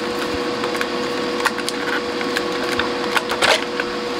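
The radio's plastic chassis being pushed and wedged into its cabinet, giving a tight fit: scattered creaks, scrapes and clicks, with a short scraping cluster about three and a half seconds in. A steady background hum runs underneath.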